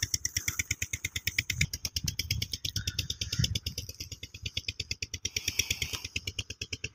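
A small engine running steadily, a rapid even thudding, with the crackle of a stiff woven plastic tarpaulin being shaken out and spread.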